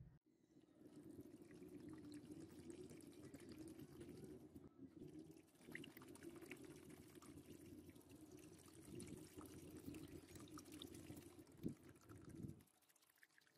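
Faint, steady pouring and trickling of vinegar from a plastic bottle into a shallow plastic trough, filling it to soak a rusted steel blade. There is a brief break about a third of the way in, and the pouring stops about a second before the end.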